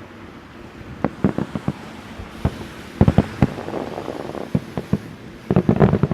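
Starmine fireworks bursting in a rapid barrage: a quick string of sharp bangs about a second in, another cluster around three seconds, scattered single bangs, then a dense volley of bursts near the end.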